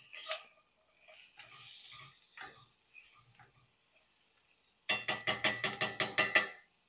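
Wooden spoon stirring pear slices and cranberries in a cast-iron skillet, with soft scrapes and clicks. About five seconds in comes a louder, rapid rattle of about a dozen quick strokes with a slight ring, lasting about a second and a half.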